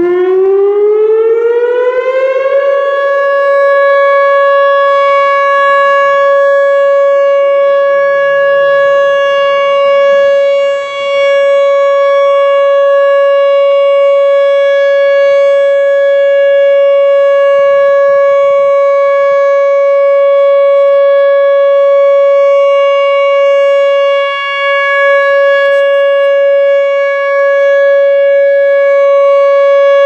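Whelen 2910 electronic outdoor warning siren starting its sound: the tone rises in pitch for about two and a half seconds, then holds one loud, steady pitch, with a couple of brief dips in loudness.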